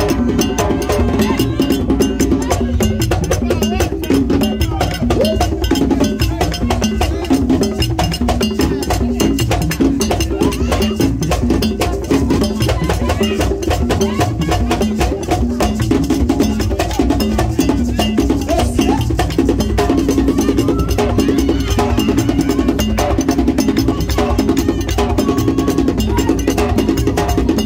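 Haitian Vodou ceremonial music: drums and a struck metal bell keeping a fast, steady rhythm, with voices singing over it.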